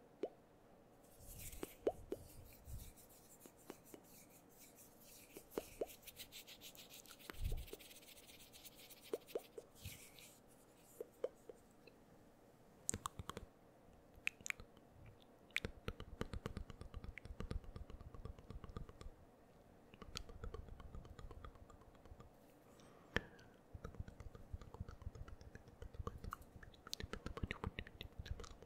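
Close-miked ASMR mouth sounds: scattered clicks and pops, with a long stretch of breathy, unintelligible whispering in the first third and a denser, crackly run of mouth noises through the second half.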